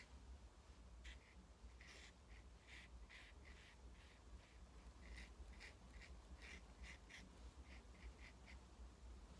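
Faint, short scratchy strokes of a paintbrush working white oil paint onto linen canvas, irregular, about two a second.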